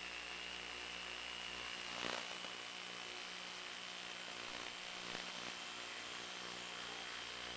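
Steady hiss and hum with a faint high whine that rises slowly in pitch, the flying wing's electric motor under power heard through the FPV link's audio. A brief crackle about two seconds in.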